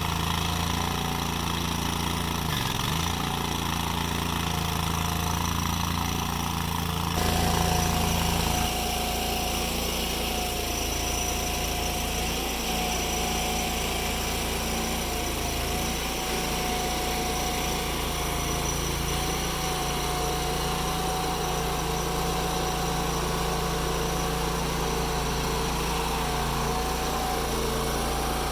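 Engine-driven machinery running steadily. Its sound changes abruptly about seven seconds in, and a thin wavering whine then rides over the engine.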